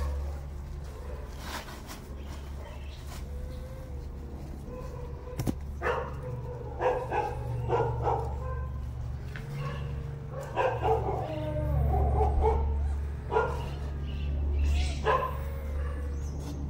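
Short, sharp animal barks and yips in several clusters, over a steady low hum.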